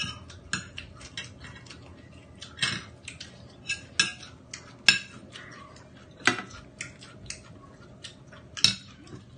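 Irregular small clinks and clicks of a drinking glass and tableware being handled, with a few louder knocks among them.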